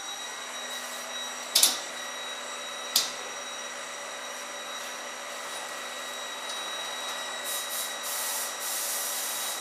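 Rotopack Futura automatic tray sealer running with a steady machine hum and whine. Two sharp, loud clacks come about a second and a half in and again about three seconds in, and short bursts of hissing air come near the end.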